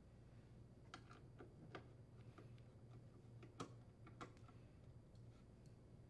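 Faint, scattered ticks and clicks of a screwdriver working the screws on an air conditioner's sheet-metal control box cover, over a faint steady low hum.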